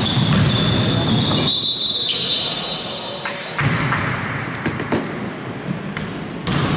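Basketball play on an indoor court: the ball bouncing with sharp knocks, short high sneaker squeaks, and players' voices in a reverberant gym.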